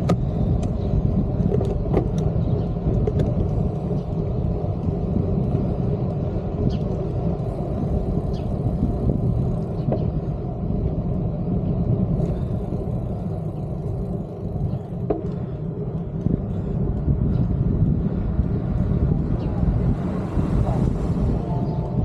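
Steady low rumble of wind on the microphone and road noise from a ride down a street, with a few faint ticks.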